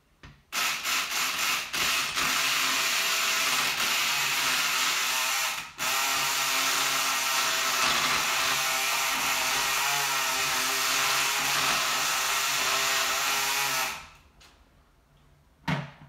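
Kronos electric pick gun buzzing steadily with its needle in a patio door lock cylinder, raking the pins. It stops and restarts a few times in the first two seconds, pauses briefly about six seconds in, and cuts off about fourteen seconds in.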